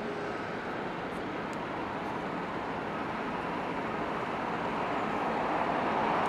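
Jet aircraft engine noise, a steady rush that grows gradually louder.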